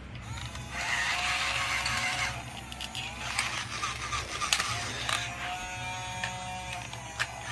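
Small electric gear motors of the toy robots whining in two runs of about a second and a half each, with a couple of sharp clicks in between and near the end.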